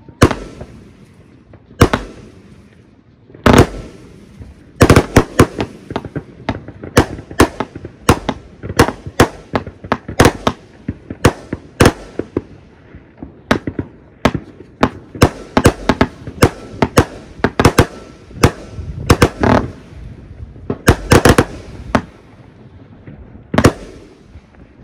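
New Year's Eve fireworks going off: a few single loud bangs at first, then long, irregular runs of sharp explosions in quick succession, with a short lull before one more bang near the end.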